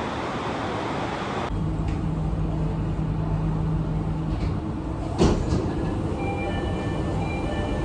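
Steady low rumble inside a moving train carriage. A sharp knock comes about five seconds in, and a few high electronic tones sound near the end.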